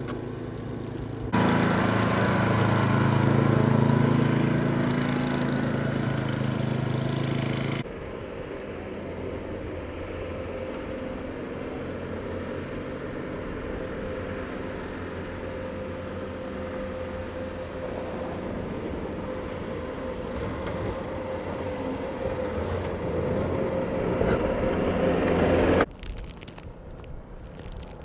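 Road vehicle engines running and passing on a snowy street, in several separately cut shots whose sound changes abruptly; the loudest shot, in the first quarter, carries a low engine drone.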